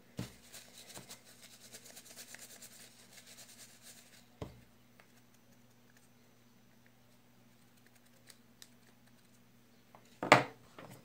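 Rapid, fine ratchet-like clicking of a small fishing-reel part being turned by hand for about four seconds, then a single knock. After a quiet stretch comes a louder knock and clatter of parts near the end.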